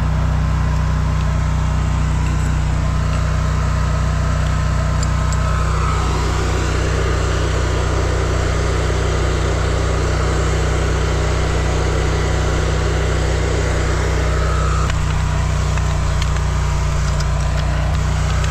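Engine of a high-pressure drain jetter running steadily with a constant low hum, with a rougher, noisier stretch through the middle.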